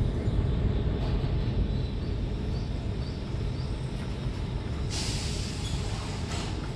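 Steady low outdoor rumble with faint, short chirps now and then. From about five seconds in, a soft high rustle joins.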